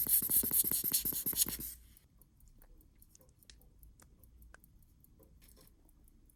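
A quick run of loud sharp clicks, about a dozen a second, over a hiss, stopping about two seconds in; after it, only a few faint, scattered small clicks.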